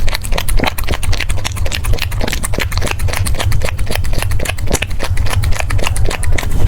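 French bulldog eating, close-miked: a fast run of chewing and smacking clicks over a steady low rumble.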